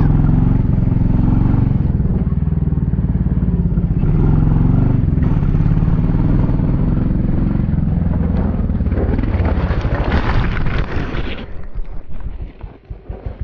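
Kawasaki KLX110 mini dirt bike's small single-cylinder four-stroke engine running under throttle while riding over dirt. About eleven seconds in, the engine note drops away to a slow, uneven idle.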